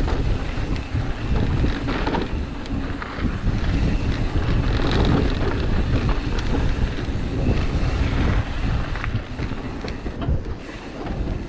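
Wind rushing over a helmet or body-mounted camera microphone while a mountain bike is ridden fast down a dirt downhill trail, with scattered small knocks and rattles from the bike over the ground.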